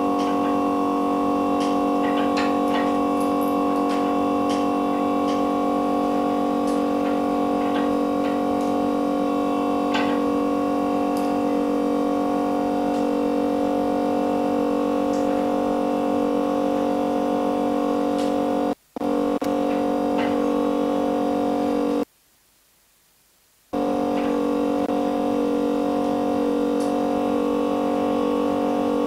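Background music: a sustained synthesizer chord held at a steady level, with faint light ticks above it. It cuts out twice about two-thirds of the way through, once very briefly and once for about a second and a half.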